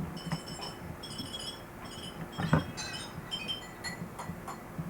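High, tinkling chime-like clinks ring out in small clusters again and again, over a low steady hum, with a single dull thump about halfway through.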